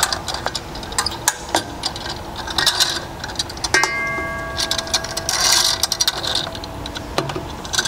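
Rubber air hose being handled on a steel spring-driven hose reel: scattered clicks and knocks, and the hose rubbing and sliding over the sheet-metal drum. About four seconds in, a knock sets off a metallic ringing tone that fades over about three seconds.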